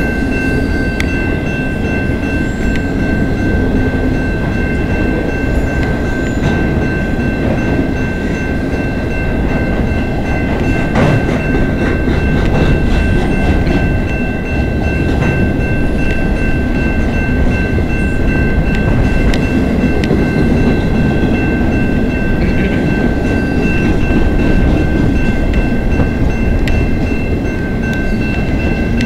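CN freight train's cars (empty flatcars) rolling past at a level crossing: a steady rumble and clatter of wheels on rail, with a steady high-pitched ringing over it.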